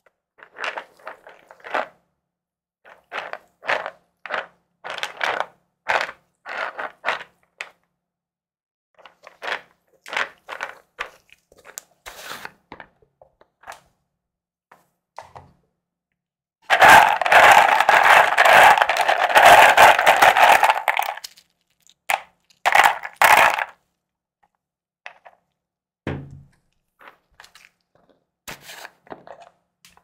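Square plastic storage containers being handled: lids twisted and pulled off with a run of clicks and scrapes, then a loud rattle of loose mechanical keyboard switches shaken in a plastic container for about four seconds, followed by a few more clicks of plastic.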